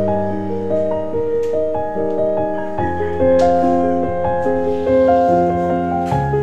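Background music: a keyboard melody of evenly paced notes over held bass notes that change about every three seconds.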